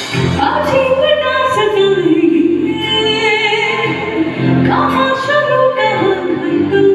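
Music: a woman singing a melody with vibrato over instrumental accompaniment.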